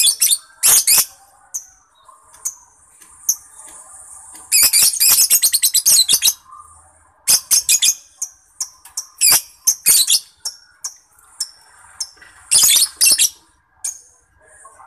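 Lovebird singing: sharp, high-pitched chirps broken by fast rattling trills, the longest a run of rapid notes a little over four seconds in, with more bursts near the ten- and thirteen-second marks.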